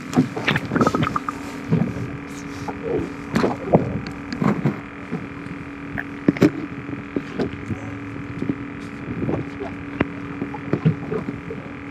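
Muffled sound picked up by a GoPro held underwater: a steady low hum with irregular clicks and knocks.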